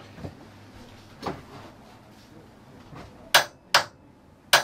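Torque wrench clicking as keel bolts are retorqued: a few faint knocks, then three sharp metallic clicks in the last second and a half, coming in quick pairs, the wrench's signal that the bolt has reached its set torque.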